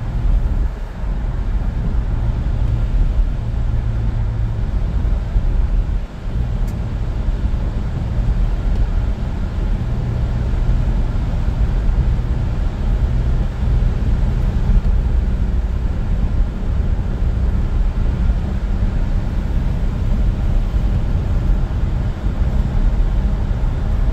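Steady low road rumble inside a moving car's cabin: engine and tyres running on a wet highway, with a brief dip in level about six seconds in.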